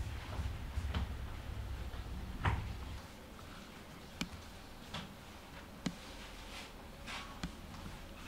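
A few separate light knocks and clicks of handling in a bakery workspace, over a low hum that drops away about three seconds in.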